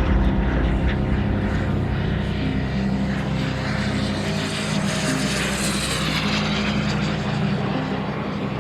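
Radio-controlled model aircraft engine running in flight, its sound swelling about five seconds in as the plane passes, then fading.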